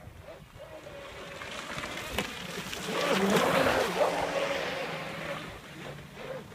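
Small waves from an RC boat's wake washing in at the water's edge, swelling to their loudest about three to four seconds in. Underneath runs the steady whine of a Pro Boat Blackjack 24 RC catamaran's electric motor out on the water.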